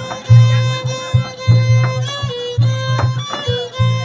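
Background music: a sustained, richly overtoned melody line over a pulsing bass beat.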